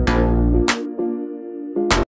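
Electronic outro music: synthesizer tones over a deep bass, with three sharp percussion hits.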